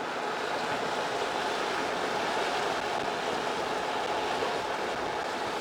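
Steady rushing road and wind noise from a moving vehicle, with no distinct tones or impacts.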